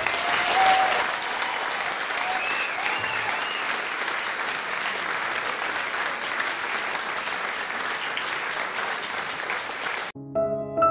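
Crowd applause with a little cheering, starting suddenly and cutting off abruptly about ten seconds in.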